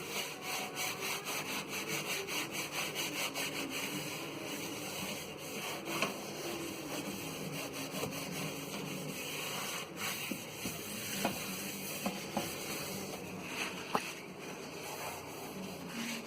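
Scrubbing a microwave's surfaces, rubbed back and forth in quick strokes of about four a second for the first few seconds, then a looser rubbing with a few light knocks.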